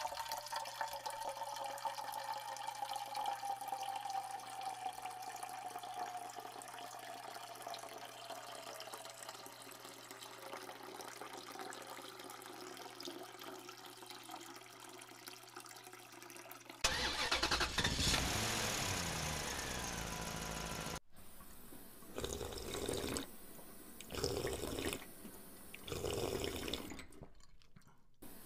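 Small-scale water running and splashing from a miniature hand pump. Near the end it comes in short gushes about a second long, repeating with the pump's strokes.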